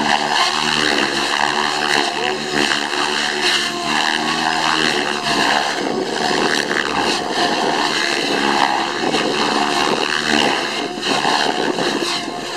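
Radio-controlled helicopter flying 3D aerobatics: the main rotor and motor drone steadily with a high whine. Their pitch and loudness rise and fall as the model flips and hangs inverted and nose-up.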